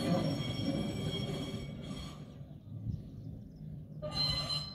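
Double-deck tramcar running on narrow-gauge track with a low rolling rumble and high, thin wheel squeal. The squeal drops away about two seconds in and comes back near the end.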